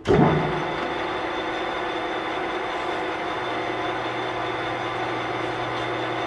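Nardini Mascote MS-1440E engine lathe starting up: a sudden loud clunk as the spindle engages, then the geared headstock runs on steadily with a constant mechanical hum and several steady tones.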